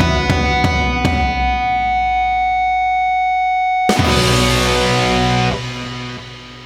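Distorted electric-guitar rock music: a few sharp hits, then a long held chord. A final full hit comes about four seconds in; its chord rings, then drops away and fades out at the close.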